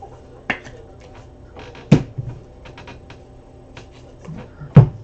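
Trading cards and rigid clear plastic top loaders being handled on a table: a few sharp taps and clicks, the loudest near the end, with light ticks of cards in between.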